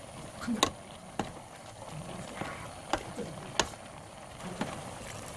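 Kitchen utensils knocking against cookware: about five sharp, short clicks spread irregularly over a few seconds, the loudest about half a second in, over a low steady hiss.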